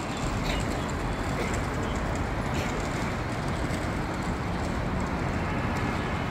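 Steady outdoor city background noise, mostly road traffic, with a deep rumble underneath and no distinct events.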